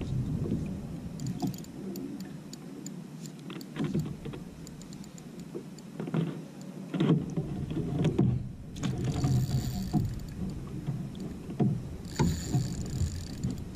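Water sloshing and lapping against a plastic kayak hull, with scattered short knocks and clicks from gear on the boat.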